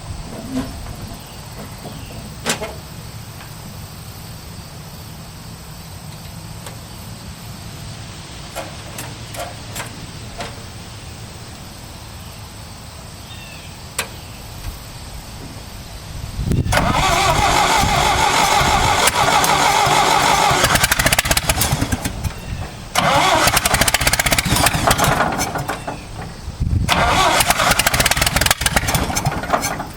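Quiet with a few clicks for about the first half, then a John Deere 2010 tractor engine being cranked over in three long attempts with short pauses between.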